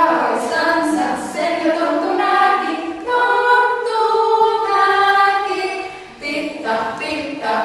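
Small group of women singing together a cappella, voices holding sung notes, with a brief break about six seconds in.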